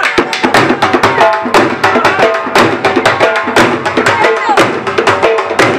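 Dhol drumming a quick, steady dance rhythm, several strokes a second, with a melody line held over it.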